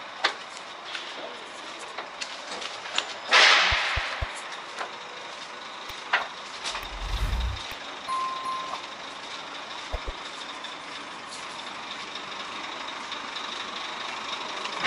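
Truck-stop ambience among parked semi-trucks over a steady hum. About three seconds in, a truck's air brakes let out a loud hiss of compressed air that fades within half a second. Scattered clicks and knocks follow, with a short low rumble, and a single short beep just after the eight-second mark.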